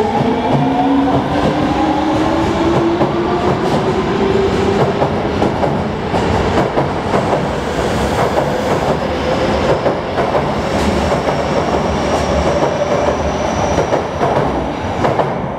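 Osaka Midosuji Line 21 series subway train accelerating away from a station. Its traction motors whine, rising in pitch over the first few seconds, then give way to wheels clattering over the rails and a steady rush as the cars pass, easing slightly near the end.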